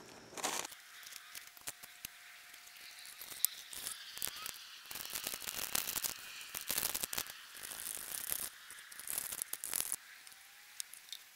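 Packaging rustling and crinkling with irregular clicks and rattles as powdered milk is tipped from a packet into a steel camp cup.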